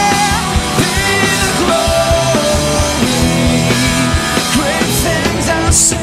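Live rock band playing an instrumental passage: drum kit under sustained electric guitar lines, with a cymbal crash near the end.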